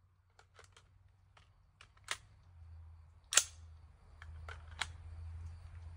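Gunshots on a firing-drill pattern: one single shot about three and a half seconds in, then a quick string of three about a third of a second apart. Fainter clicks come before them.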